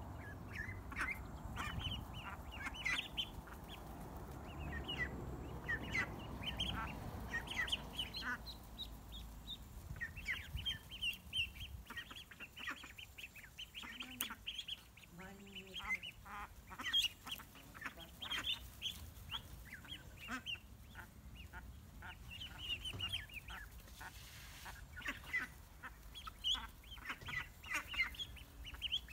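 A flock of young ducklings and chicks peeping, many short high calls overlapping one another.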